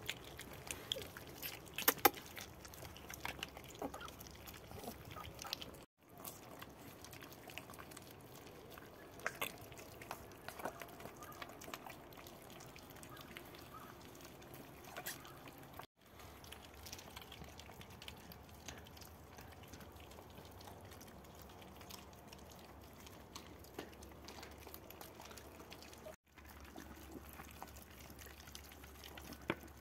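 Puppies eating from shared food bowls: faint wet chewing and smacking with scattered small clicks.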